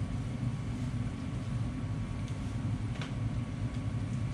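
Steady low background rumble, with a faint click about three seconds in.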